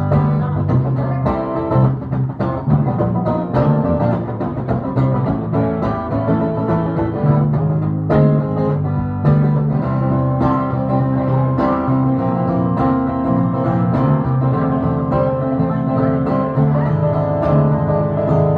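Acoustic guitar playing an instrumental passage: repeated strummed chords over sustained low bass notes, with no singing.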